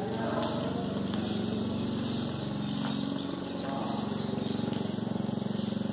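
Small petrol engine of a push lawn mower running steadily as it cuts the grass.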